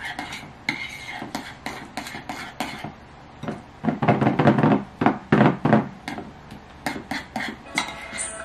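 Metal spoon stirring food in a ceramic bowl, clinking and scraping against the sides in quick repeated strokes. The clatter grows louder for a couple of seconds around the middle.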